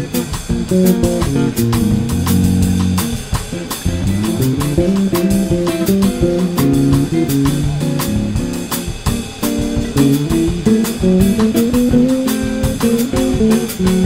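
Background music: an instrumental stretch with plucked guitar over bass and a steady drum beat, no singing.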